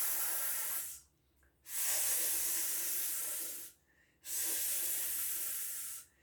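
A man hissing the letter S sound, a voiceless 'sss' like a snake, three times with short breaks: one ending about a second in, then two held for about two seconds each.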